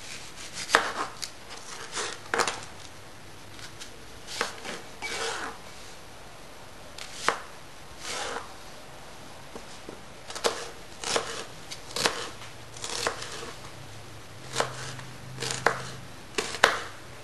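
Kitchen knife chopping a red onion on a white plastic cutting board: irregular sharp strikes of the blade on the board, coming more closely together over the last few seconds.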